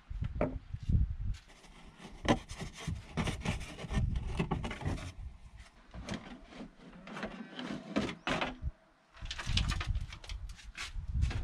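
Rubbing, scraping and irregular knocks as a black plastic under-car splash shield is pulled loose by hand and handled.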